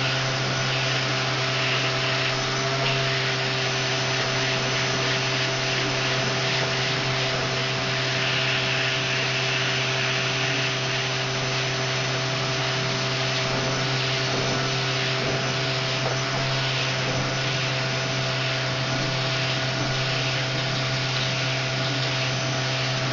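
Vacuum cleaner running steadily with a strong, even hum while its nozzle is drawn through a long-haired cat's fur, the hiss shifting a little as it is moved.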